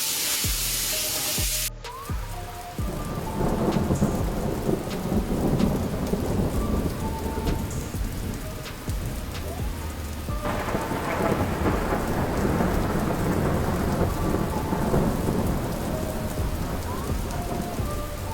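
Rain with a low rumble of thunder running through it. It opens with a loud, even hiss that cuts off suddenly about two seconds in.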